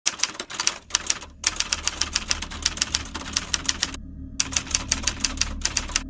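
Typewriter keys striking in rapid runs, several a second, with short breaks about a second and a half in and about four seconds in, over a low steady hum.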